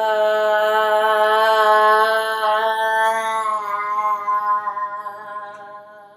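A woman's voice chanting one long held note, steady in pitch, that slowly fades out over the last few seconds.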